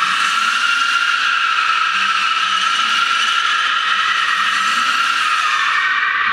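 Rear tyres of a BMW E36 3 Series coupe squealing steadily as the car drifts in circles on smooth concrete, with the engine faint underneath.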